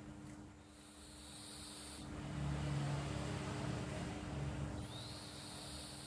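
Domestic cat snoring in its sleep: a high whistling breath for about two seconds, then a louder low buzzy snore for about three seconds, then the whistling breath again near the end.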